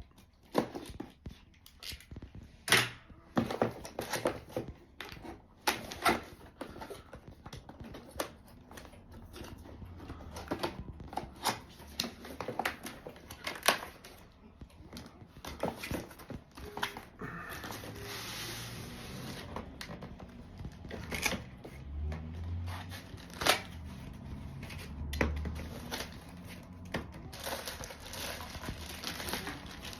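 Cardboard box and plastic packaging being handled and opened by hand: rustling, crinkling and tearing, with scattered sharp clicks and knocks.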